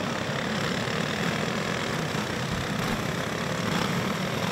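A steady, even drone of several four-stroke clone go-kart engines running together under the caution flag, with no revving.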